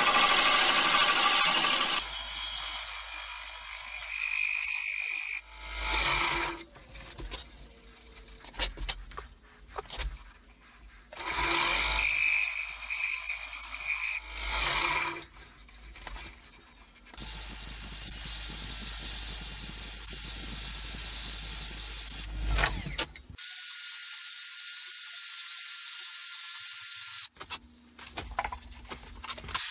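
Bowl gouge cutting the outside of a wooden bowl spinning on a Laguna 1836 wood lathe, with the lathe running underneath. A bowl steady is fitted against the bowl to damp the chatter from a slightly warped spindle. The cutting comes in several short stretches that start and stop abruptly, and a thin high whine runs through the later ones.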